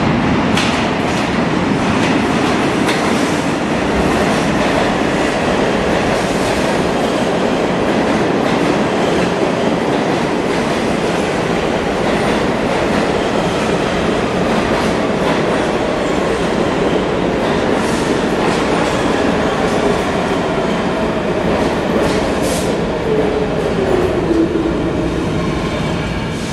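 R46 subway train pulling into an underground station: a loud, steady rumble of wheels on rail with clacks over the rail joints, and a whine that falls in pitch as the train slows toward the end.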